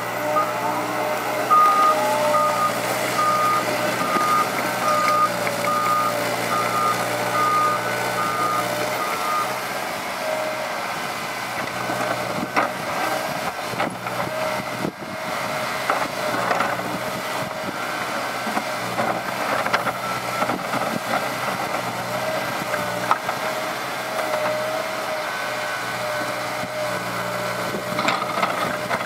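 Liebherr 906 crawler excavator working, its diesel engine running steadily under load with a steady whine. A travel alarm beeps about once a second and stops about nine seconds in, and a few knocks come around the middle as it digs.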